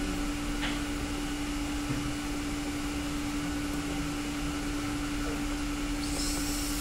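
Steady hum of running equipment and ventilation, with one constant low tone throughout. A faint click comes about two-thirds of a second in as a relay front-panel arrow key is pressed, and a brief high-pitched tone sounds near the end.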